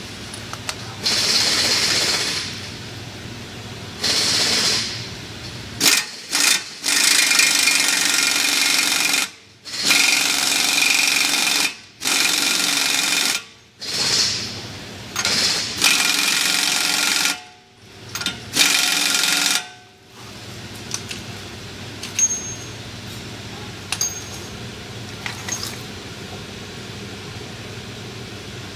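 A pneumatic impact wrench runs in a string of short bursts on the hub bearing bolts of a 2017 Chevrolet Impala's front steering knuckle. After about twenty seconds it stops, leaving only a few light clicks.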